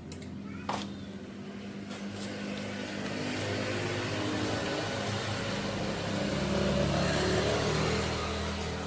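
A motorcycle engine running, growing louder from about three seconds in as if revved a little, with a sharp metallic click near the start.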